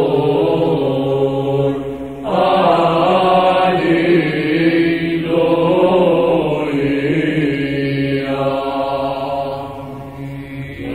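Byzantine Orthodox liturgical chant sung by a group of chanters over a steady held drone (the ison). A new phrase swells in about two seconds in, and the singing eases off near the end.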